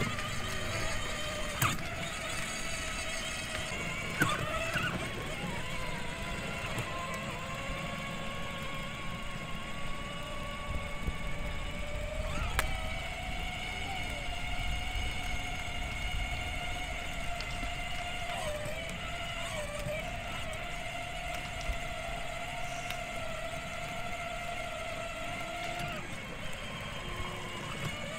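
Electric drive motors and gearboxes of a 24V ride-on toy Toyota Hilux whining steadily as it drives, over a low rumble. The whine's pitch wavers about two-thirds of the way through as the speed changes, and a few sharp clicks sound along the way.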